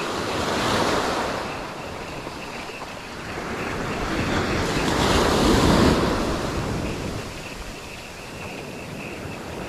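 Sea waves washing onto the shore, surging and falling back twice, with wind buffeting the microphone.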